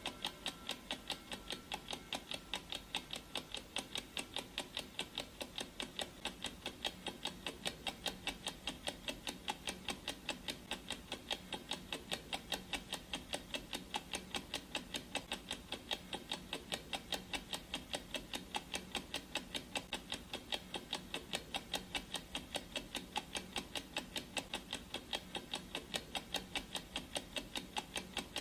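Clock-ticking sound effect of a countdown timer: sharp, even ticks repeating at a steady rate without a break.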